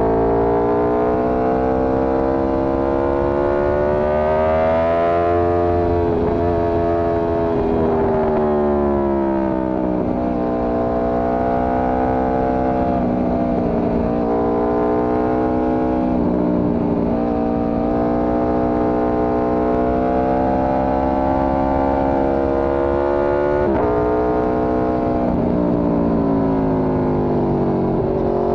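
Four-cylinder sport-touring motorcycle engine under way, its pitch climbing for about five seconds, dropping, then rising and falling again several times as the rider accelerates and eases off.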